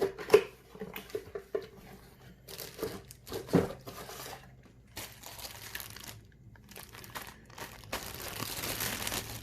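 Packaging crinkling and rustling in several separate stretches as intake-kit parts are unwrapped, with a few sharp knocks of parts being handled in the first half.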